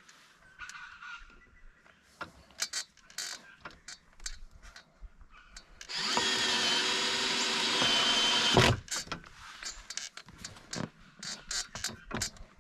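Power drill running steadily for about two and a half seconds, starting about six seconds in and stopping with a knock. Light clicks and handling knocks come before and after it.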